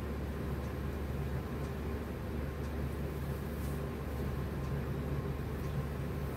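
Steady low hum of room background noise, with faint brief rustles of a silk saree being spread out and lifted.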